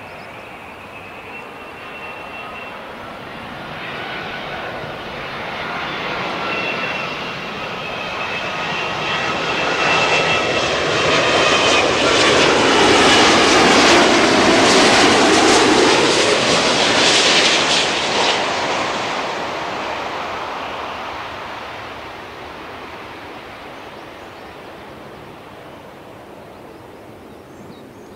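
Boeing 787-10 with Rolls-Royce Trent 1000 engines on landing approach, passing low overhead. A high engine whine sounds over the jet rush as it approaches. The noise builds to a loud peak about halfway through, then fades as the airliner moves away down the runway.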